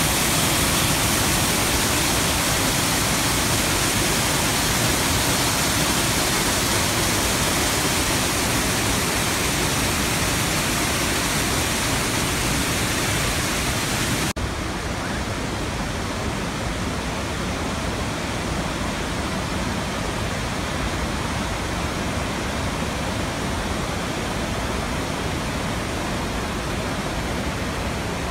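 The Rhine Falls: water cascading over rocks in a steady, loud rush full of hiss. About halfway through it changes abruptly to a duller, slightly quieter rush without the high hiss: the churning water of the basin below the falls.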